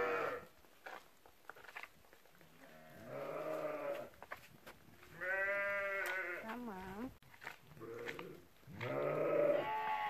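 Sheep bleating: about four separate bleats, each lasting from half a second to two seconds with a wavering pitch, coming every couple of seconds, with the tail of another right at the start.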